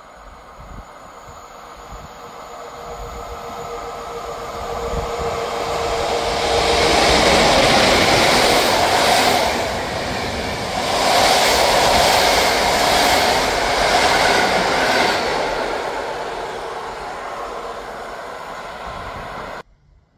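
Passenger train running through a station at speed on the nearest track: its rumble and wheel-on-rail noise builds from a distant approach with a steady hum, is loudest as the coaches go by, then fades. The sound cuts off abruptly near the end.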